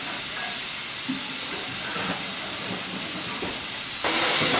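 Steam hissing steadily from BR Ivatt Class 2MT 2-6-2 tank locomotive 41312 standing at the platform, released around the engine's front end and cab side. The hiss becomes abruptly louder about four seconds in.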